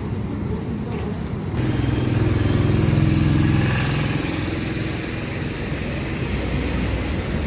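An engine running, its low hum swelling about two seconds in and easing off after about four seconds, with a faint thin high whine alongside.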